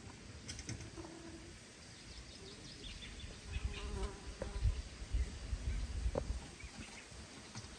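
A flying insect buzzing close by, with low rumbling through the middle.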